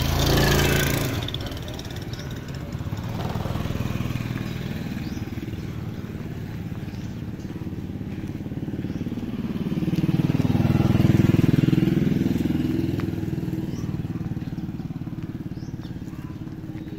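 Motorbike engine running, a steady low hum that swells louder about ten seconds in and then eases off.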